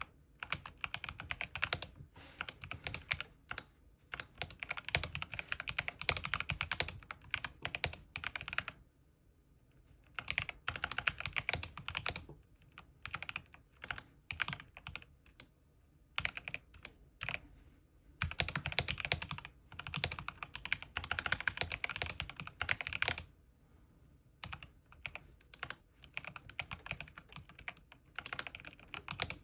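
Typing on a Corsair K70 mechanical keyboard: rapid runs of key-switch clicks in bursts, broken by short pauses, with the clicking sparser for a few seconds near the end.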